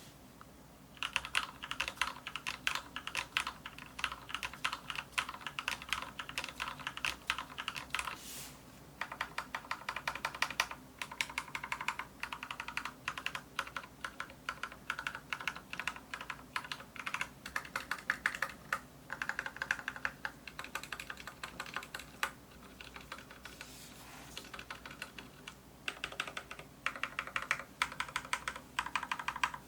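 Typing on an Anne Pro 2 mechanical keyboard with Cherry MX Brown switches: fast, steady runs of key clacks broken by a few brief pauses.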